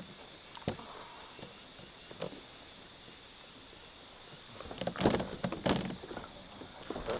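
Insects buzzing steadily with a high, even drone, with a couple of light knocks early on. About five seconds in comes a short, louder spell of knocking and water noise as a hooked bowfin is being netted beside a kayak.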